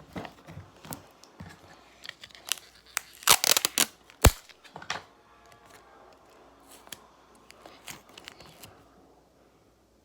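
Something being torn and crinkled by hand, a run of short rasps about three to five seconds in, with one sharp knock near the end of the run.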